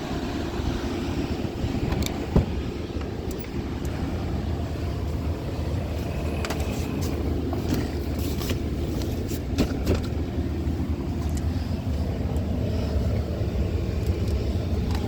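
Steady low mechanical hum of a running vehicle, with scattered light clicks and taps over it.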